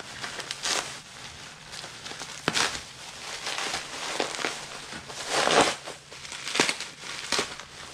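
Plastic bag and bubble wrap crinkling and rustling as they are unwrapped by hand, in irregular bursts with the loudest crackle about five and a half seconds in.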